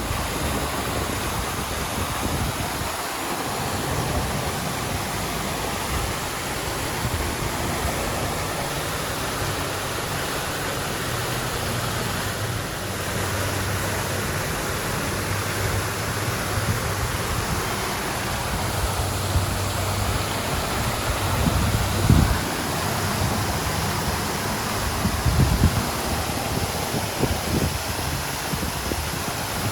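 Water fountain splashing steadily, a continuous rush of falling water, with a couple of brief low thumps in the later part.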